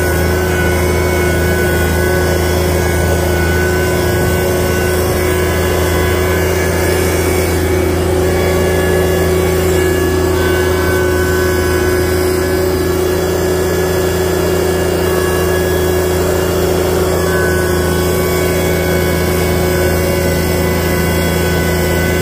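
John Deere tractor engine running at a steady speed, an unbroken, even drone heard close up from the operator's seat while the tractor plows snow with a rear blade.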